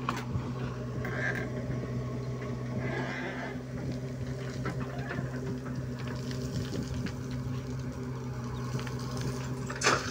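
JCB 3DX backhoe loader's diesel engine running steadily under load as the backhoe digs, with scattered clatters of soil and stones. Just before the end comes a louder crash as a bucketload of earth is dumped into a tractor trolley.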